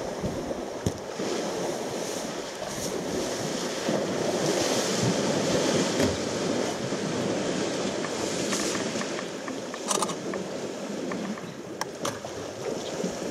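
Elephants wading and splashing through a shallow waterhole, a steady churning of water, with a few short knocks late on.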